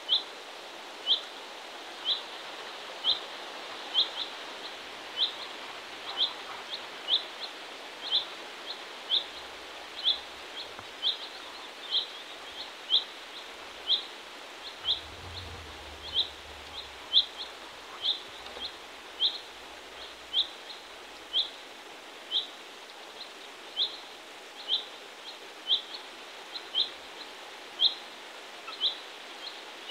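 A small bird calling over and over: short, high, upslurred chirps about once a second, now and then in quick pairs, over a steady outdoor hiss.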